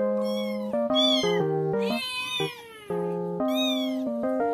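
Kitten meowing at a closed door it wants to get through, about four high-pitched calls that rise and fall, over background music of held keyboard-like chords.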